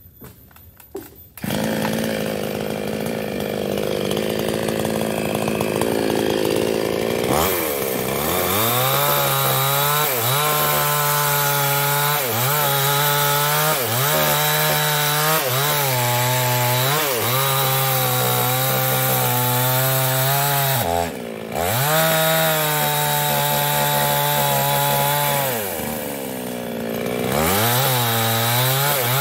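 Two-stroke gasoline chainsaw cutting through a felled tree trunk, starting sharply about a second in. The engine is held at high revs, and its pitch sags and recovers again and again as the chain bites into the wood. Revs drop briefly about two-thirds of the way through.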